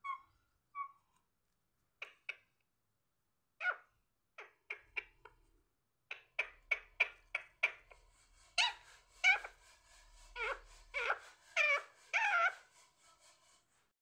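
Rose-ringed parakeet chattering in short high calls, a few at first, then coming quickly, about three a second, from about six seconds in. The last few seconds hold louder, longer calls that bend up and down in pitch.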